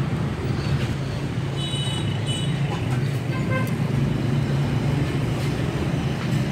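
Street traffic: a steady low engine rumble of passing vehicles, with two short horn beeps about two seconds in.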